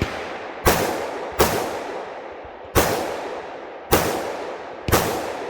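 Five rifle shots fired at an uneven pace during an IPSC rifle stage, each with a long echoing tail.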